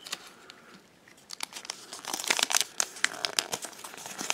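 Toy packaging crinkling and crackling as it is handled, faint at first and turning into a busy run of crackles about a second in.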